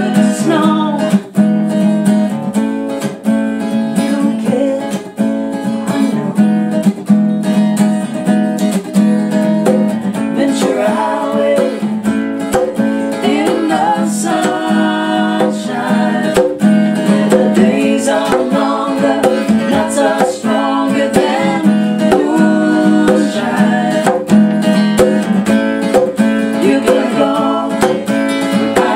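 Acoustic guitar strummed with hand drums played alongside, and voices singing over them in a live band performance.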